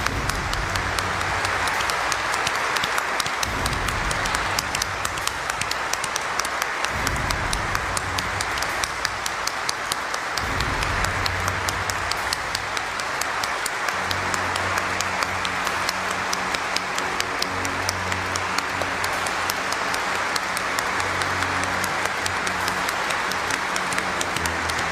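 Large congregation applauding, a long, steady round of applause.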